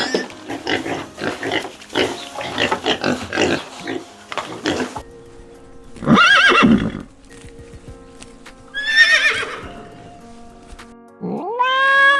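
Horse whinnying twice, a loud quavering high call about six seconds in and another about three seconds later, over soft background music. The first few seconds hold a quick run of short sounds, and near the end a cat begins a long meow.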